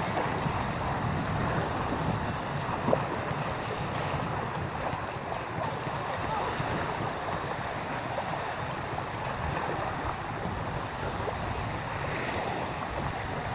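Steady wind rushing over the microphone with shallow seawater washing around, and a brief knock about three seconds in.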